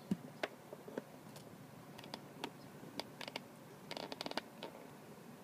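Scattered light clicks and taps of handling, from the plastic coin tubes and the phone being moved, with a quick run of clicks about four seconds in.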